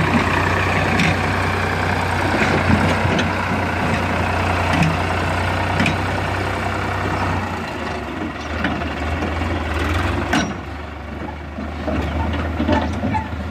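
Sonalika tractor's diesel engine running with a steady low drone and some rattling, its note changing about seven and a half seconds in as the tractor and its tipping trailer pull away.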